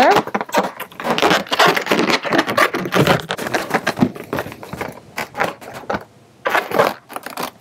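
Inflated latex balloons rubbing against each other and against the hands as two balloon nozzles are tied together: a dense run of rough, scratchy rubbing noises with a short lull about six seconds in.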